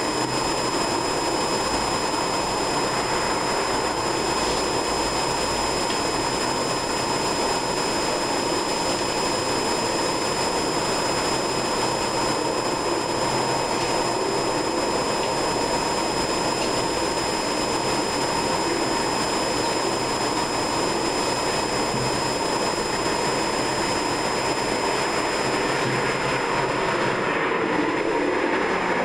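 Steady rushing noise that holds at one level throughout, with a thin constant high whine over it.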